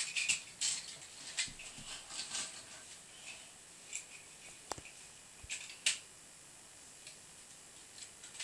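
Plastic Lego pieces clicking and rattling as they are handled, in scattered light clicks with one sharper knock about two-thirds of the way through.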